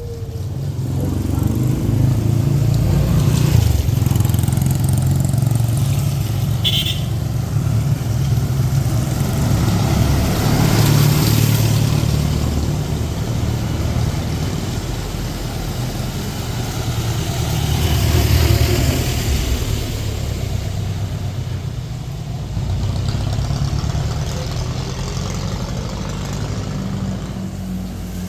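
Street traffic, cars and motorcycles passing close by with a steady low engine rumble that swells three times as vehicles go by.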